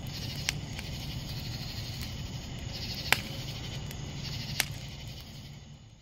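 Wood fire burning in a metal mesh fire pit, crackling with a few sharp pops over a steady low background, fading out near the end.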